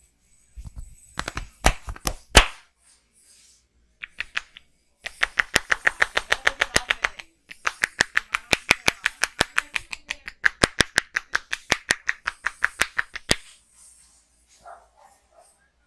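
Barber's hands striking a person's head in fast, rhythmic massage pats, about six or seven sharp slaps a second in two long runs. Before the runs there are a few scattered louder smacks.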